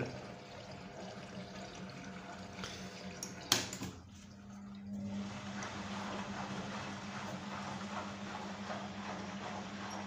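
Arçelik 6103 H washing machine filling in test mode: water runs through the inlet valve into the detergent drawer. A sharp click comes about three and a half seconds in, then a brief lull, and the filling carries on with a steady low hum.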